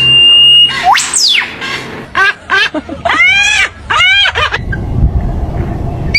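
A series of animal calls: a held whistled note, a fast glide up and back down, then several short, arching calls in quick succession, followed by a low rumble near the end.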